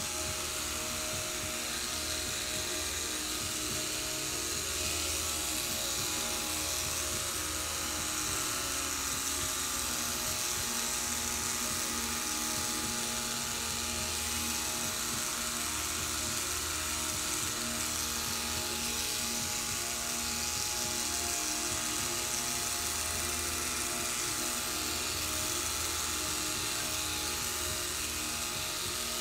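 Corded electric pet clippers buzzing steadily as they shave through a cat's thick white fur.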